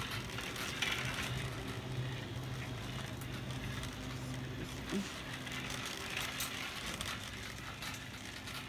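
Shopping cart being pushed, its wheels rattling and clicking over the floor, over a steady low hum.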